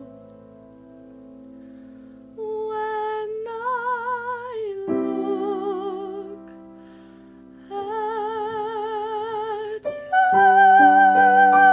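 Female voice singing a musical-theatre ballad with wide vibrato over instrumental accompaniment. The accompaniment is quiet at first, the voice enters about two seconds in with separate phrases, and it swells into a louder, long-held high note near the end.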